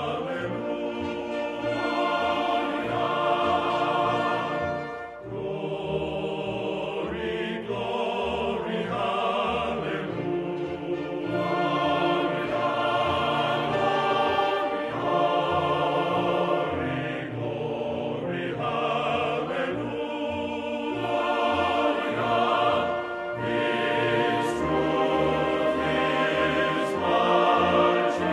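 Choral music: a choir singing over an orchestral backing.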